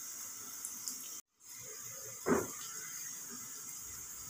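Sliced onions sizzling in hot oil in a small aluminium pan, a steady frying hiss that cuts out briefly about a second in. A short voice sound comes about two seconds in.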